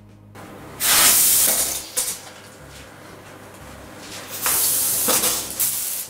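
Liquid sprayed onto a concrete wall from a sprayer in two hissing bursts, the first about a second long and the second about a second and a half, with a short click between them.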